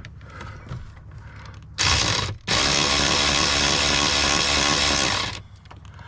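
Cordless electric ratchet run on a door-hinge nut: a short burst, then about three seconds of steady motor whine that stops. The bolt is turning with the nut, so the ratchet spins it without tightening.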